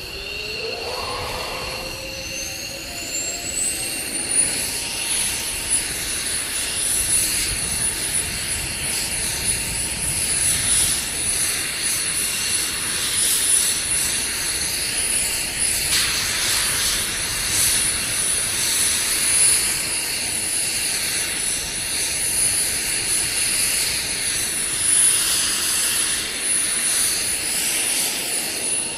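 F-22 Raptor's Pratt & Whitney F119 jet engine winding up on the ground: a high whine rises in pitch over the first four seconds, then holds steady over an even rush of jet noise as the engine settles at idle.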